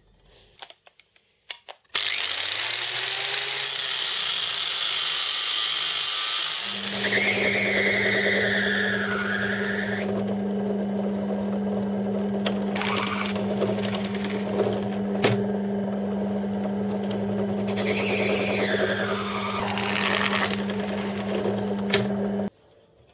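A few light clicks, then a power tool starts loudly about two seconds in. A drill press then runs with a steady motor hum while its bit bores into a thick acrylic (Perspex) block, with a squeal that bends in pitch twice as the bit cuts. The motor cuts off suddenly near the end.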